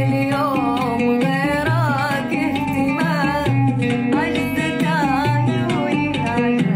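A woman singing an Arabic song, her voice bending up and down in ornamented runs, over instrumental backing music with a bass line.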